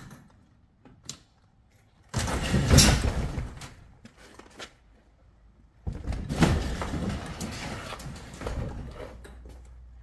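Sectional garage door with its cables cut rattling and scraping as it is pushed in and swings on its top mount, in two loud spells: one about two seconds in, and a longer one from about six seconds in that trails off.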